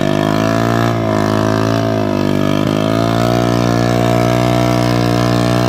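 Small motorcycle engine running hard at steady high revs, its pitch dipping briefly about a second in and again past halfway, as it drives the rear wheel through a waterlogged, muddy rice field.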